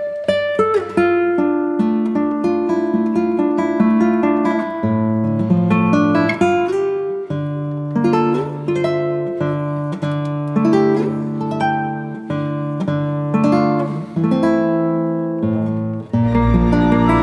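Background music led by plucked acoustic guitar, with a change in the backing about sixteen seconds in.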